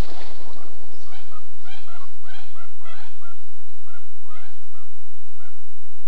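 A sudden burst of noise, then a series of short, repeated animal calls, about two a second, some in quick pairs, thinning out near the end.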